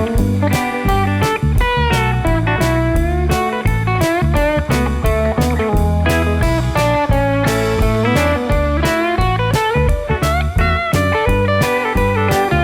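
Band music with electric and slide guitar over a steady drum beat, the guitar notes bending and sliding.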